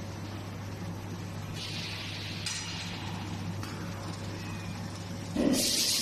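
Machinery of an automatic hot-forging bolt production line: a steady low hum, with stretches of hissing about two and three seconds in and a sudden, louder burst of hissing near the end.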